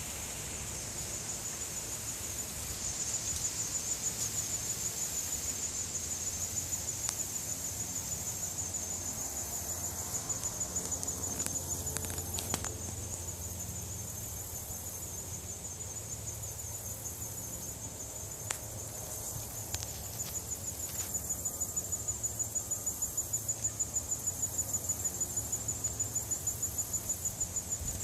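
Insects chirping steadily in a high-pitched, evenly pulsing chorus, louder in the second half, with a few faint clicks.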